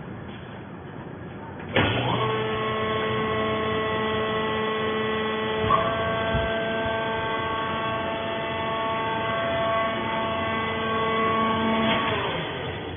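Fiber baler's hydraulic press motor and pump starting up with a sudden steady whine and hum, running evenly for about ten seconds, then winding down near the end.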